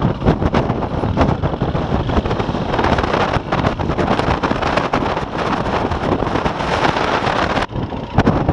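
KTM dirt bike's single-cylinder four-stroke engine running while riding, largely buried under wind buffeting the microphone. The sound changes abruptly near the end.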